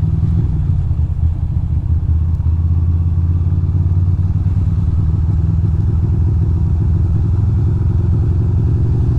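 2006 Ducati Monster 620's air-cooled L-twin engine running steadily at low revs as the motorcycle rolls slowly along a city street.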